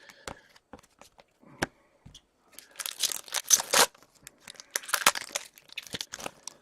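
Hockey card pack wrapper being torn open: two loud crinkly tearing bursts about a second apart, between small clicks and taps of cards being handled.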